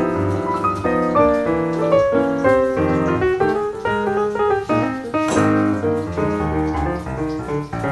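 Background piano music, a flowing melody over chords.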